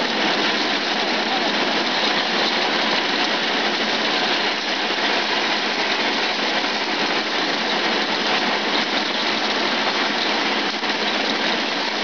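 Peanut (groundnut) sheller running under load, peanuts pouring through its shelling chamber: a loud, steady, dense rushing rattle of pods being cracked and shells blown off.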